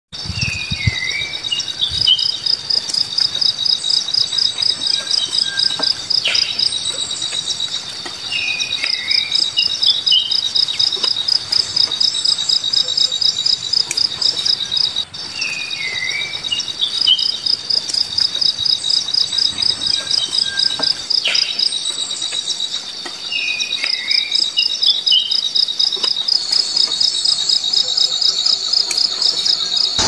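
Crickets chirping in a steady train of rapid pulses, about four a second, in long repeating runs. A small bird gives short falling calls every several seconds.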